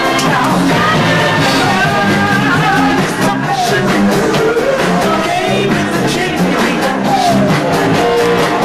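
Rock music with singing.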